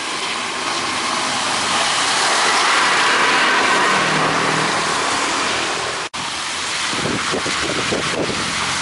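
Vehicles driving through a flooded street, tyres swishing through the water in a loud, steady hiss that peaks two to three seconds in. The sound drops out for an instant about six seconds in, then turns rougher and more uneven as a van passes through the water.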